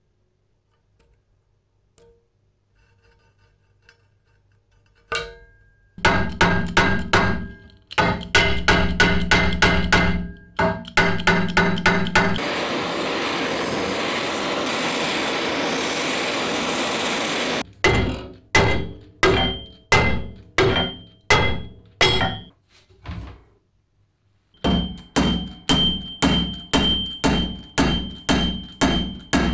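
Hammer blows on the seized pivot of a rusted 1895 Alexanderwerk book press lever, in quick runs of strikes with a ringing metal note. About five seconds of a propane torch hissing steadily break the hammering as the stuck joint is heated. Faint clicks of a small screw being turned out by hand come before the first blows.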